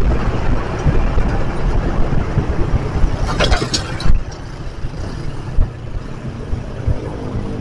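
Motorcycle riding in city traffic: engine rumble and wind noise on the microphone, getting quieter about four seconds in as the bike slows down. A short hiss a little past three seconds in cuts off suddenly about a second later.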